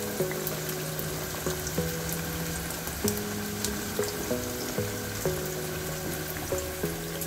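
Background music of held notes changing every second or so, over a light crackle of cireng (tapioca dough) frying in hot oil.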